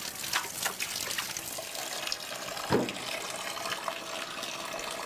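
Tap water running steadily into a concrete laundry tub full of soapy water, with small splashes and a brief low thud nearly three seconds in.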